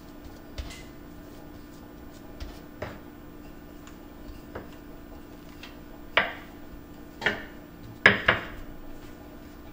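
Wooden rolling pin knocking on a bamboo cutting board while dough is shaped. There are a few light taps, then three sharper knocks near the end, the last a quick double and the loudest.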